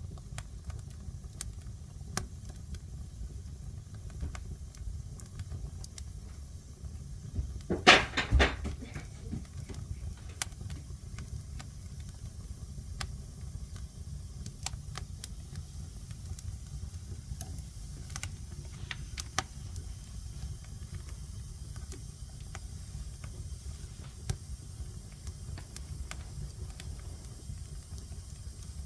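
Fire burning in a fireplace: a steady low rumble with scattered crackles, and a quick run of loud pops about eight seconds in.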